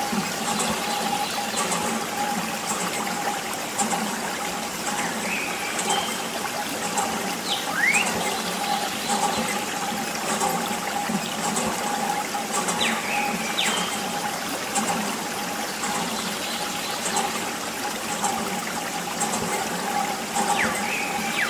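A thin stream of water trickling from a small plastic tube onto muddy toy vehicles and wet sand, with a steady hum underneath and a few short rising chirps.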